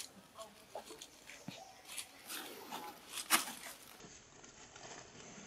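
Newborn macaque giving short, faint squeaking cries as its mother handles it, with a few sharp clicks, the loudest a little over three seconds in.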